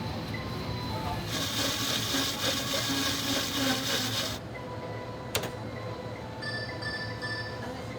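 At a supermarket checkout, a dry rustling hiss lasts about three seconds and cuts off abruptly. A sharp click follows, then a quick run of short electronic beeps, over faint background music.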